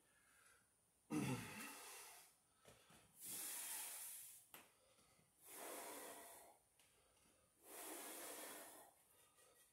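A man breathing hard while squatting with a cinderblock: a short voiced exhale about a second in, then three long breaths about two seconds apart.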